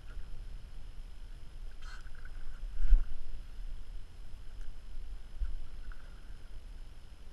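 Low wind rumble and water against the hull of a small aluminium fishing boat, with one sharp knock about three seconds in.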